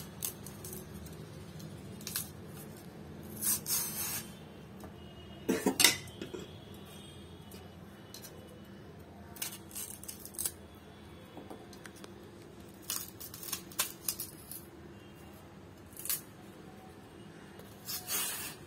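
Kitchen knife cutting the stalk end and tip off a raw green plantain held in the hand, heard as short scattered scrapes and clicks a few seconds apart.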